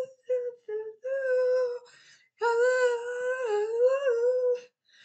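A single unaccompanied voice singing or humming a wordless melody in long held notes, in several phrases with short breaks between them.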